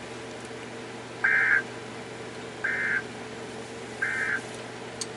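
Emergency Alert System end-of-message tones: three short SAME digital data bursts, about a second and a half apart, each a rapid warble between two high pitches. They signal that the alert message has ended.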